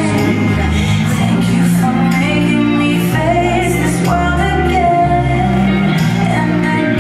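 Pop song with a singer over a steady bass line, played as the line-dance music.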